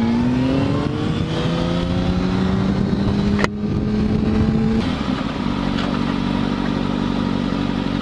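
Sport motorcycle engine pulling under acceleration, its note climbing steadily, with a sharp click about three and a half seconds in. About five seconds in the throttle closes and the engine drops to a steady, lower running note as the bike slows.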